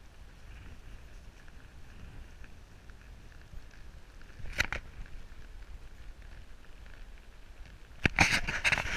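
A horse walking through tall dry grass, with hooves and stems rustling and a low wind rumble on the microphone; a single click about halfway through. Near the end a loud run of quick noises starts.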